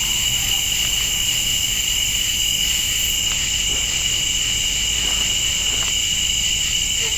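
Steady night chorus of crickets and other insects, a continuous high shrilling that does not let up.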